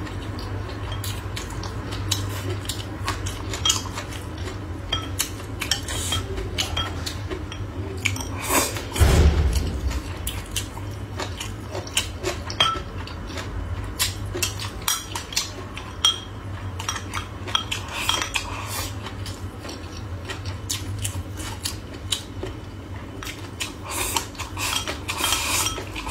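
Bamboo chopsticks clicking and scraping against a ceramic rice bowl and plate while rice and stir-fry are eaten, with one heavier low thump about nine seconds in. A steady low hum runs underneath.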